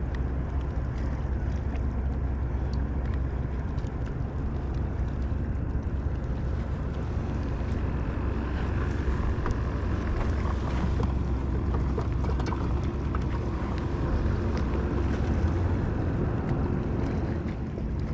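Steady low rumble and wash out on the water aboard a small skiff, with wind on the microphone.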